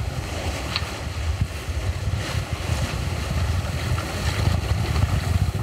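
Wind buffeting the microphone over the rush of water along a sailboat's hull as it sails, heard as a steady low rumble with a hiss of water.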